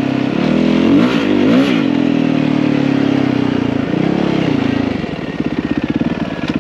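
Yamaha WR450F dirt bike's single-cylinder four-stroke engine revving up and down in a few quick blips, then settling about five seconds in to a steady, pulsing idle.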